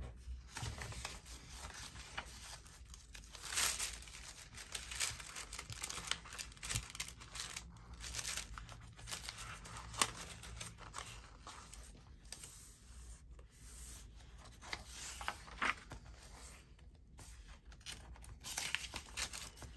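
Paper scraps and ephemera being rummaged through and shuffled by hand, with irregular rustling and crinkling.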